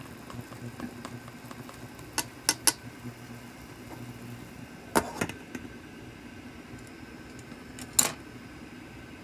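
Sharp clinks and knocks of kitchen things being handled: three close together about two seconds in, two about five seconds in, and a loudest one near the end, over a steady low hum whose deepest part stops about halfway through.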